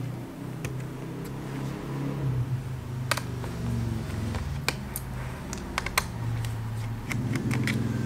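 Light, sharp clicks and taps of fingers handling the plastic and metal parts inside an open laptop around its hard drive, scattered irregularly and bunched in the second half, over a low steady hum.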